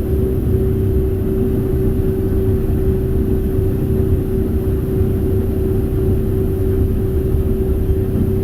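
Twin engines of a 25-foot San Juan powerboat running steadily under way: a low, even drone with a steady hum over it.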